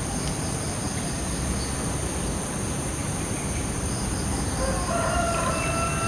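A rooster crowing, starting about four and a half seconds in, over a steady low rumble and a constant high-pitched hum.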